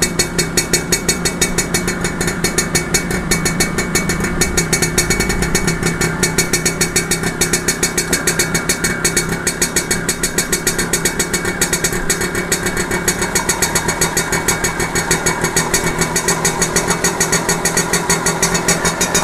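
TVS XL Super Heavy Duty moped's freshly rebuilt single-cylinder two-stroke engine idling with a steady, even beat. Its idle speed is being raised at the carburettor's RPM screw, the first step of carburettor tuning.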